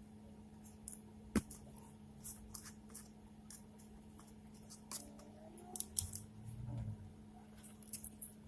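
Faint scattered clicks and taps of small electronic parts and a battery being handled and fitted, with one sharp click about a second and a half in and a cluster of knocks near the end, over a steady low hum.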